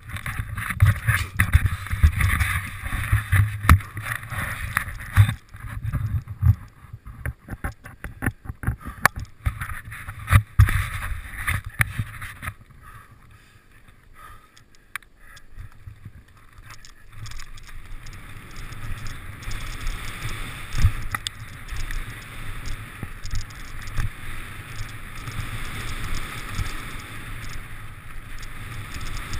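Mountain bike riding fast down a dirt and gravel trail: tyres on the ground and the bike rattling and knocking over bumps, busiest for the first dozen seconds, easing off briefly and then settling into a steadier rush.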